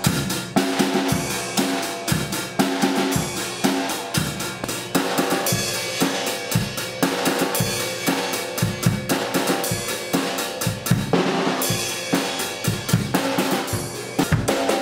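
Background music with a steady drum-kit beat over pitched instruments.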